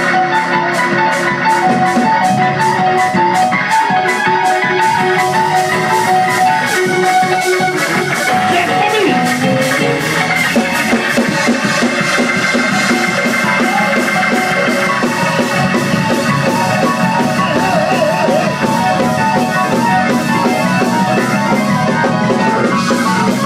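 Live gospel praise-break music: a drum kit keeps a fast, steady beat under a repeating organ riff with bass.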